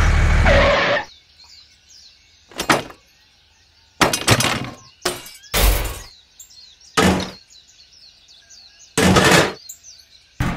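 A loud steady noise cuts off about a second in, followed by a series of short knocks and clatters of hard objects, about seven, spaced unevenly. Birds chirp faintly in the background.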